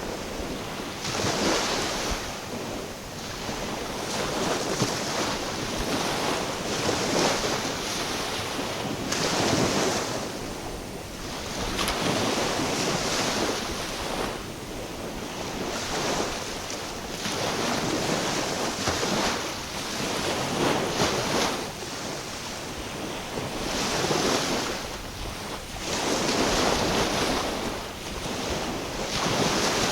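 Small waves washing in, surging and ebbing every two to three seconds, with wind buffeting the microphone.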